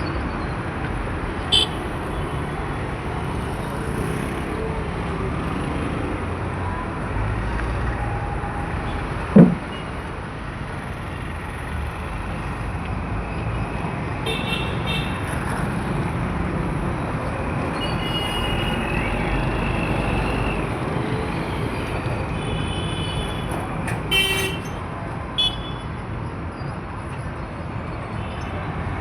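Busy road traffic: a steady rumble of engines and tyres from passing vehicles, with several short horn honks, the loudest about 24 seconds in. A short sharp sound stands out about nine seconds in.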